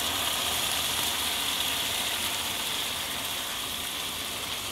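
Hot water poured from a saucepan into a hot frying pan of sautéed rice, sizzling with a steady hiss that fades gradually: the liquid being added to the rice for Mexican red rice.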